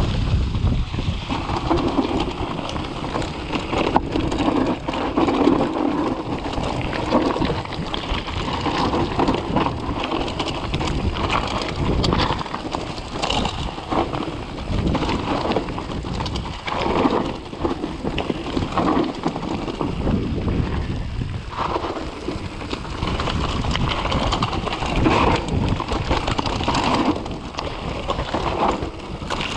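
Mountain bike descending a rocky trail at speed: a continuous clatter of tyres over loose stones and the bike rattling over bumps, under a rumble of wind on the camera microphone.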